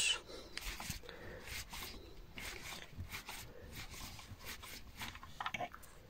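A 2 mm Allen key turning a small hex bolt out of the armrest mechanism: faint, irregular scrapes and light ticks of metal on metal, with a few louder clicks near the end.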